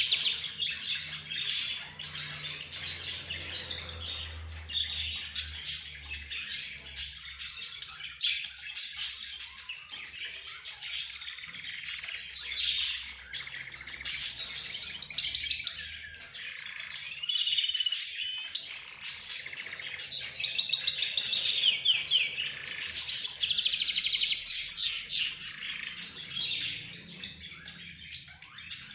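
A mixed group of pet cage birds chirping, tweeting and squawking over one another without pause: budgerigars, rosy-faced lovebirds, zebra finches and a canary. Dense overlapping calls include several fast trills.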